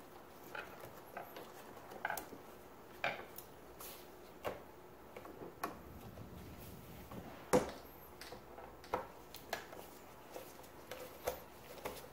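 Irregular light clicks and taps of a throttle cable and handlebar parts being handled on a Yamaha WaveRunner III 650 jet ski, with one sharper knock about halfway through.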